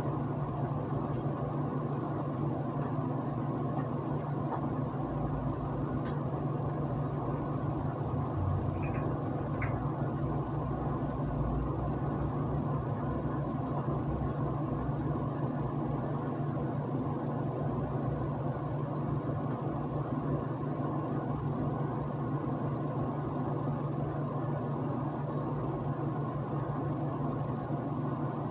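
A steady low mechanical hum, unchanging throughout, with a few faint clicks near the middle.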